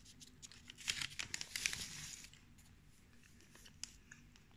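Paper wrapper of a chocolate bar crinkling and rustling as it is handled: a run of quick crackles about a second in, lasting about a second and a half, then a few faint ticks.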